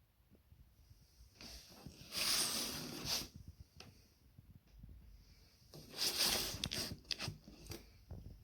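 Two bursts of rustling, scraping noise, each about two seconds long, with scattered clicks and knocks between them.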